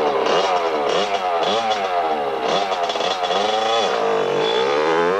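Motocross bike engine, freshly started, revved up and down again and again with the throttle, its pitch rising and falling about once a second.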